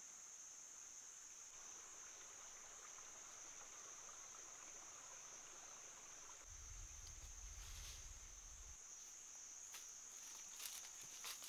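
Faint, steady, high-pitched drone of insects (crickets or cicadas), one unbroken shrill tone. A low rumble comes in for about two seconds midway, and a few faint crackles of dry leaves sound near the end.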